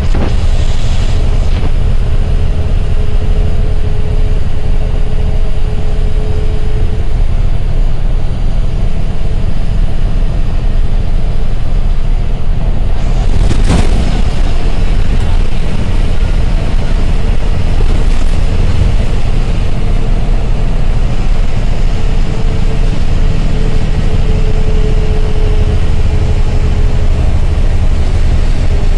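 Ashok Leyland GSRTC bus engine and road noise heard from inside the driver's cab while cruising at speed, a steady low drone with a faint whine coming and going. A single brief sharp sound about halfway through.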